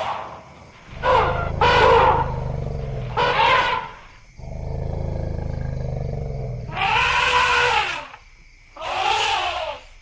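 Elephants trumpeting and calling, five calls in all: three shorter ones in the first four seconds, then two longer, louder ones near the end. Between them a low, steady elephant rumble lasts about two seconds.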